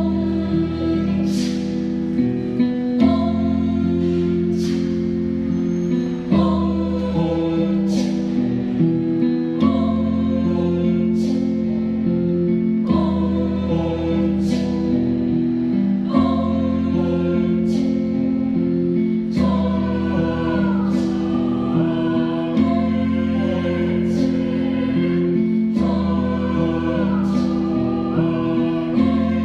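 Mixed youth choir singing an Indonesian folk-song arrangement. Low sustained chords change about every three seconds, with sharp rhythmic accents over them.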